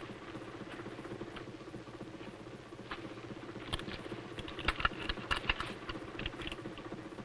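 Rifles and gear being handled: scattered clicks and small metallic clinks, bunching into a quick cluster about five seconds in, over a steady low hum.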